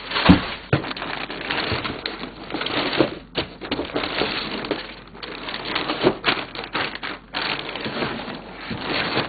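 Packing paper crumpled and rustled while rummaging through a shipping box: a dense, uneven crackle with many sharp crackles and knocks.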